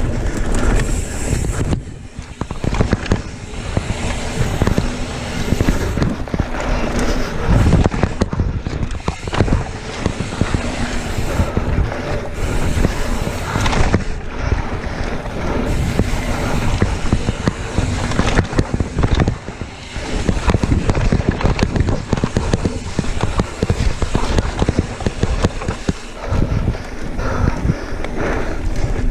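Mountain bike riding fast down a dirt singletrack, with the tyres rumbling over the trail, the bike clattering and rattling over bumps, and wind buffeting the camera's microphone.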